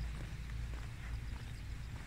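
Wind buffeting the microphone outdoors: an uneven low rumble, with a few faint clicks and chirps over it.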